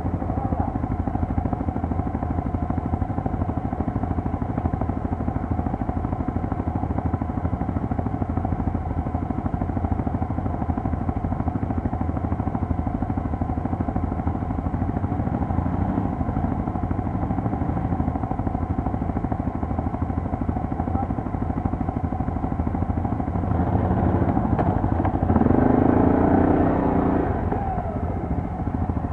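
Quad bike engine running at a steady speed, getting louder for a few seconds near the end.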